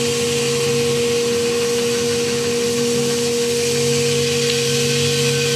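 Stationary belt sander running at a steady speed: an even motor hum with a constant hiss.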